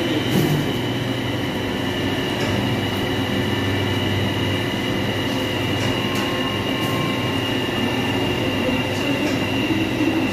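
Steady drone of bakery machinery, a low hum with a high whine held over it and no change in pitch.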